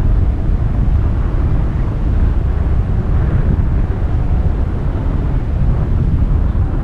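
Wind rushing over the camera's microphone in flight under a tandem paraglider: a loud, steady low rumble with no voices.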